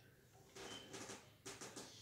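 Near silence: room tone with a few faint, brief soft sounds.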